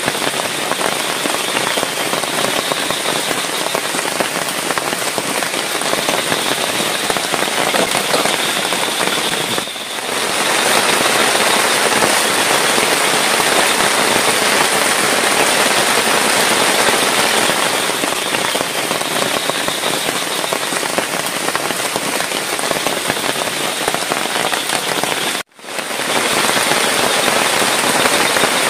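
Heavy rain falling steadily, a dense even hiss. It dips briefly about ten seconds in, then runs a little louder, and cuts out for a split second near the end.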